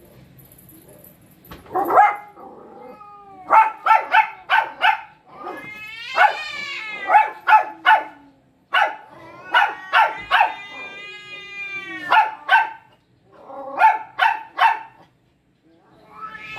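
A dog barking in quick bursts of four or five, with two long wavering howls between the bursts.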